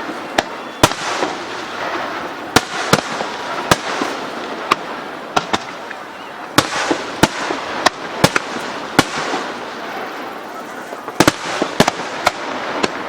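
Starmine fireworks display: aerial shells bursting in quick succession, about twenty sharp bangs at uneven spacing, some in close pairs, over a continuous rushing haze.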